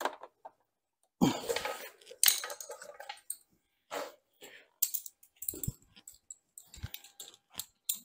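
Metal hand tools clinking and clattering while bolts on the motorcycle are tightened: a string of irregular knocks and rattles, the loudest a jumbled clatter about a second in.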